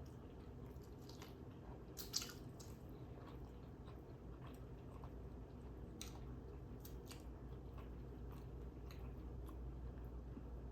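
Quiet, wet chewing of a California roll, with scattered faint mouth clicks and a sharper click about two seconds in.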